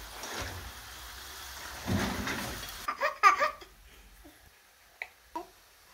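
Potato chips sizzling in a pan of hot oil, a steady hiss that cuts off about three seconds in. A baby's short, high vocal squeals follow, then a couple of faint clicks.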